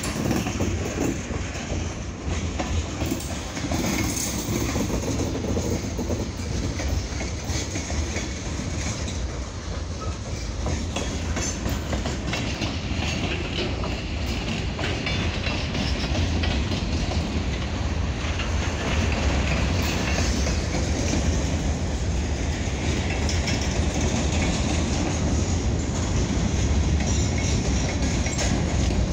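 Freight cars of a Pan Am Railways local train rolling past, their wheels clicking over the rails over a steady low rumble.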